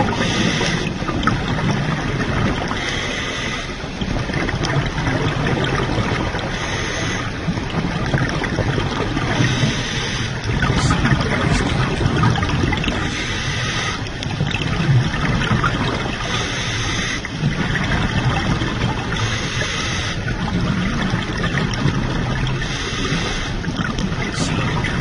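Underwater scuba diving: a diver breathing through an aqualung regulator, with bubbles and a low steady rumble of water. A breath comes round about every three seconds in an even rhythm.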